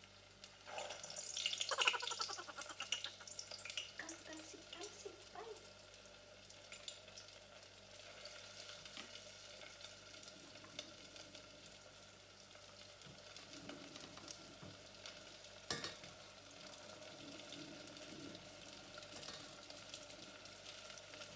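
Lumpia (Filipino spring rolls), still a little icy from the freezer, frying in hot oil in a deep stainless-steel pot. There is a loud burst of spattering a second or two in as they go into the oil, then a steady sizzle while they are turned with tongs. One sharp knock comes about three-quarters of the way through.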